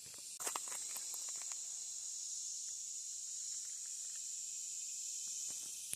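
Steady high-pitched insect chorus, a continuous shrill buzz, with a few faint clicks in the first second and a half.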